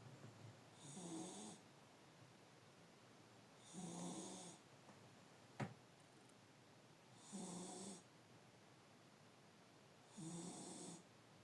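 A sleeping pet snoring, one short snore about every three seconds, four in all. A single sharp click comes about midway and is the loudest moment.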